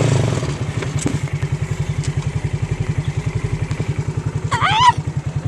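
Small engine of a vehicle running at a steady low speed with an even, fast pulsing chug. There is a brief high-pitched call about four and a half seconds in.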